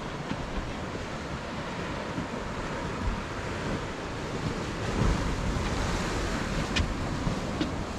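Wind buffeting the microphone over the wash of sea water: a steady rushing noise with a few faint clicks.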